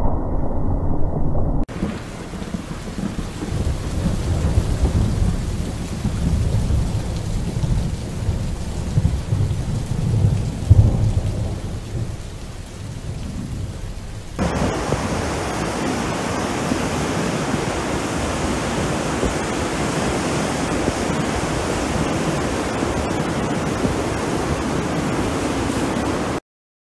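Thunderstorm: low rolling thunder rumbles, swelling to its loudest about ten or eleven seconds in. Then comes a steady hiss of heavy rain, which cuts off suddenly near the end.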